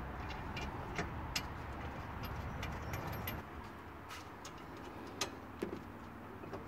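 Scattered light clicks and taps from handling disc brake parts during a pad change, over a steady low rumble that eases about halfway through.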